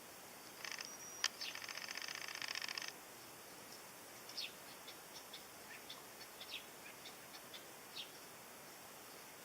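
Wild bird song: a rapid high trill lasting about two seconds, cut by one sharp click, then scattered short high chirps over the next few seconds against a steady background hiss.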